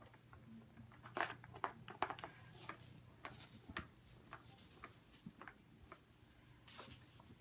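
Kittens playing with a plastic ball-track cat toy: scattered light clicks, taps and brief rustling as they bat at the ball and the plastic.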